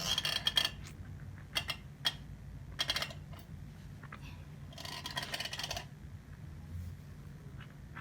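A watercolor brush working paint: several short scrapes and light clinks as it scrubs on the palette and dabs on the paper, the longest about five seconds in.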